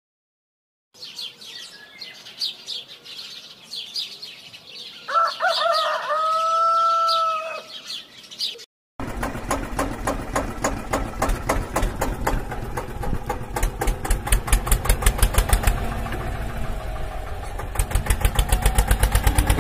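Birds chirping, and a rooster crows once about five seconds in. From about nine seconds a tractor engine sound takes over: a rapid, even chugging that grows louder near the end.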